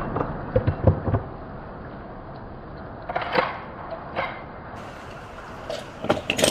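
Light scattered clicks and knocks from a handgun being handled: a few about a second in, a cluster around three seconds in, and several more near the end.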